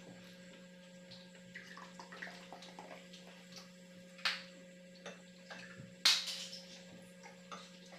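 Cola poured from a glass bottle into a drinking glass: two short splashing, fizzing bursts about four and six seconds in, the second the louder, trailing off over about a second, with small clicks of the table between.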